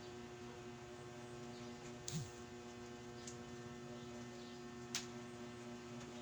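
Steady electrical hum, with a few faint sharp clicks; the loudest click comes about five seconds in.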